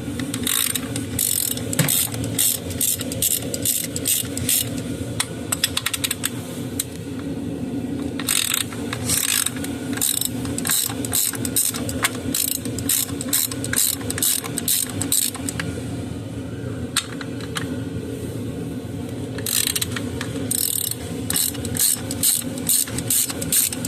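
Hand ratchet with a 13 mm socket clicking in quick runs as bolts are loosened, three runs with short pauses between. A steady low hum sits underneath.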